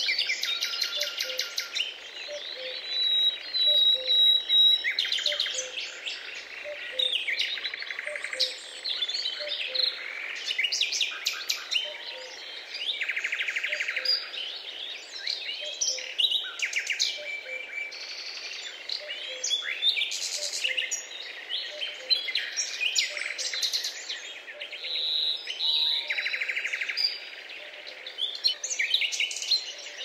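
A busy chorus of several birds calling and singing, with overlapping chirps, rapid trills and short whistled notes that come and go throughout.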